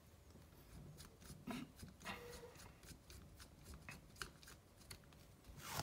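Faint scattered clicks and light scraping of a hex driver turning the small clutch screw on a nitro RC car engine, with hands handling the engine and metal shims.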